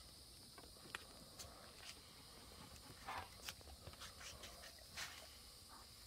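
Faint steady high-pitched insect buzz, with a few soft footsteps scattered through it, at about one second, around three seconds and again near five seconds.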